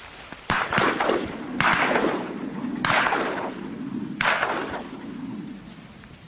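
A string of shotgun shots about a second or so apart, each a sharp crack trailing off in an echo.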